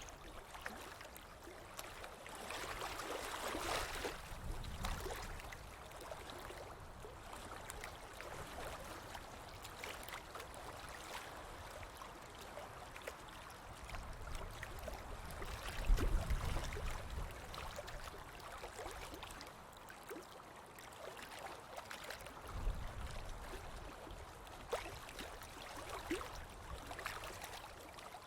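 Lake water lapping and trickling in a steady wash, with a couple of low rumbles, the stronger about halfway through.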